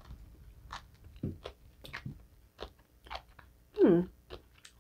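Crunchy chewing of a mouthful of shredded green papaya salad: a string of short, crisp crunches. About four seconds in comes a short, louder closed-mouth 'mm' hum that falls in pitch.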